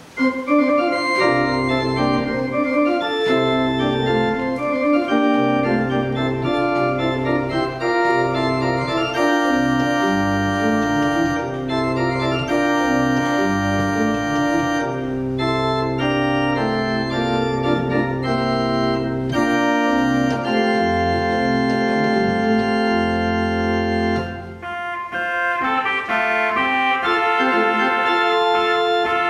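Martin Ott tracker-action pipe organ playing a festive piece in full chords over sustained pedal bass notes. The music starts right away, thins out briefly about 24 seconds in, then goes on in a higher, brighter register.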